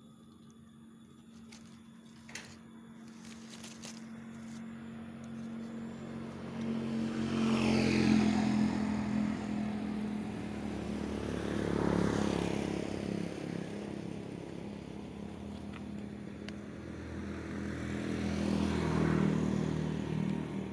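Motor vehicles passing on a road one after another, over a steady engine hum. Three passes each build up and fade away: the first about eight seconds in, the next about four seconds later, and the last near the end.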